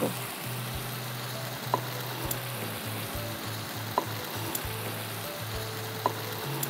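Spiced yam curry sizzling in a frying pan over a gas burner, with a few light clicks of a metal spatula against the pan as it is stirred. In the second half, water is poured in from a glass jug to make the gravy.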